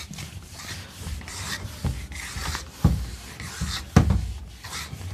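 Drawing a plot on a teaching board: irregular scratchy rubbing strokes, with two sharper knocks about three and four seconds in.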